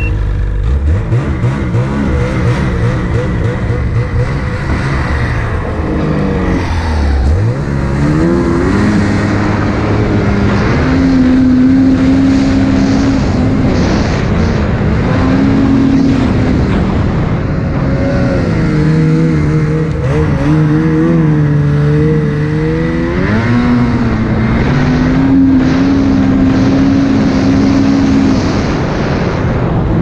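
2020 BRP Lynx Boondocker snowmobile's two-stroke engine revving under throttle as it is ridden through powder, pitch climbing, holding, then dropping and climbing again several times.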